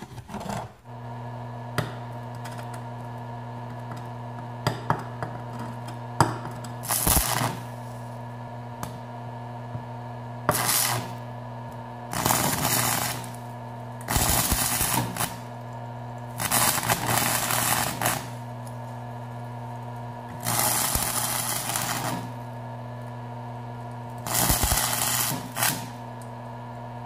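Small 110-volt stick welder humming steadily while a 6013 rod at 70 amps strikes an arc again and again, each arc crackling and sputtering for a second or two. These are short tack welds holding the broken pieces of a steel drill-press base plate in place.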